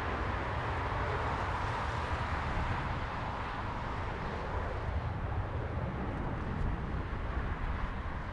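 Steady rushing noise of a jet airliner's engines, with an uneven low rumble of wind buffeting the microphone.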